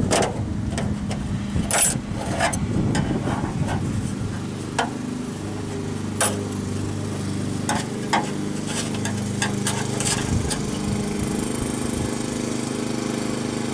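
Scattered sharp metallic clicks and knocks of a screwdriver working at the trunk lock cylinder's retaining clip, thicker in the first few seconds, over a steady engine-like hum.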